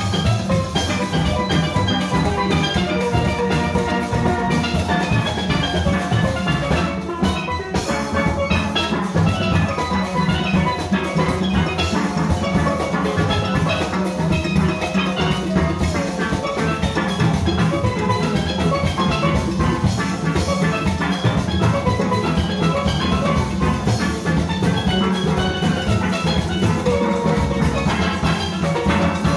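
Small conventional steel orchestra playing a soca arrangement live: massed steelpans carrying the melody and chords over a steady drum-kit and percussion engine room.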